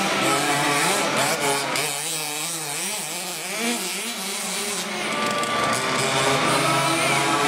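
Several small RC car motors revving together, their pitch rising and falling unevenly as the cars speed up and slow down.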